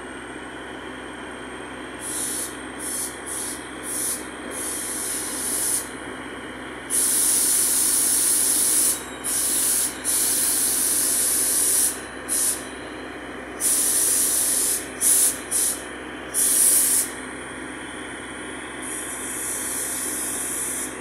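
A John Deere farm tractor's engine idling as a steady hum, with repeated bursts of hissing laid over it, some short and some lasting a second or two.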